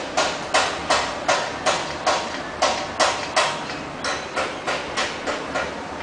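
Sulphur-crested cockatoo eating seeds from a spoon held in its foot: its beak makes a quick series of sharp clicks, about three a second, that stop shortly before the end.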